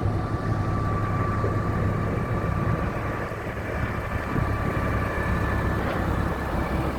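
Heavy construction machine's diesel engine running steadily, with a thin, steady high whine over the deep engine drone.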